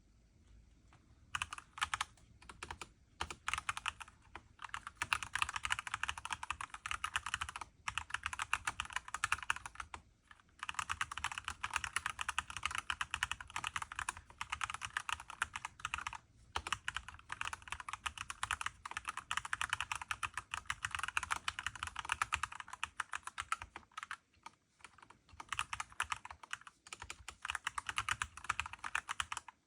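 Fast continuous typing on a Mistel MD600 Alpha split mechanical keyboard: a dense stream of key clicks with a couple of short pauses.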